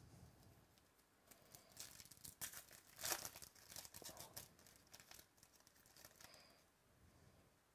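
Foil wrapper of a Topps Chrome baseball card pack being torn open by hand, crinkling and ripping in a run of crackles for about five seconds, the sharpest rip about three seconds in.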